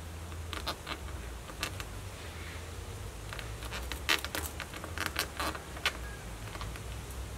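Cleaver chopping and prying into the spiky husk of a whole durian: a string of short, sharp cracks and knocks, the loudest about four seconds in and several more close together soon after.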